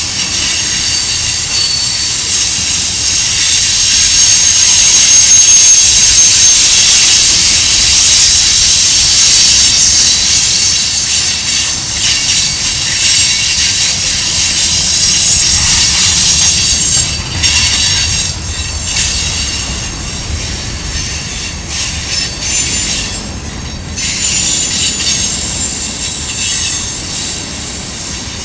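Freight train cars' steel wheels squealing against the rails as they roll through a curve, with high steady squeals over a low rolling rumble. Loudest a few seconds in, then easing off.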